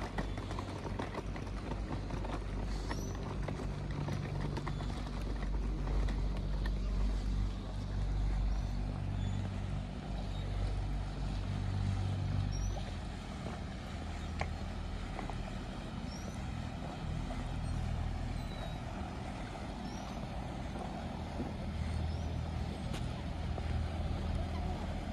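Low, steady drone of a passenger ferry's diesel engine running, with faint short high chirps above it.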